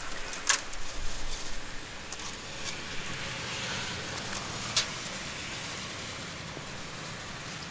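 A vehicle's engine running steadily in the background, with two sharp clicks or knocks, one about half a second in and one near five seconds in.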